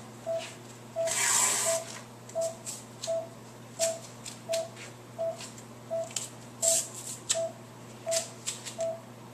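Pulse-oximeter beep from a patient monitor repeating steadily, just under two beeps a second, while adhesive tape is pulled and torn off a roll, with a loud rip about a second in and a shorter one later.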